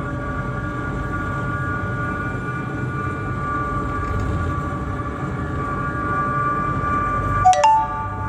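Ship's engine running at a steady low rumble, with a steady mechanical whine over it. A sharp click comes about seven and a half seconds in.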